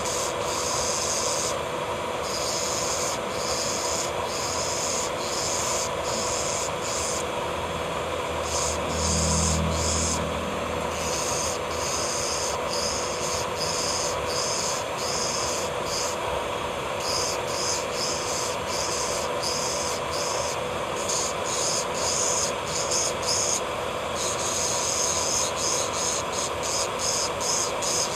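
Electric nail drill (e-file) running with a steady whine while its bit grinds against the nail in short, repeated passes, giving a hissing scrape that starts and stops every fraction of a second.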